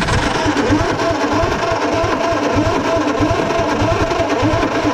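Starter motor cranking the 1948 Diamond T pickup's flathead six over, a steady whine with a quick rhythmic chug, starting and cutting off abruptly. The engine does not fire because there is no spark.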